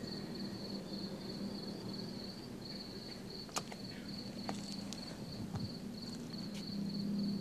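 Crickets chirping in a steady, pulsing high trill, over a low steady hum, with a couple of faint clicks.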